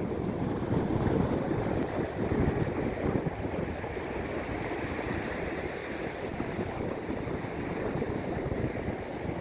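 Sea waves washing steadily, with wind on the microphone.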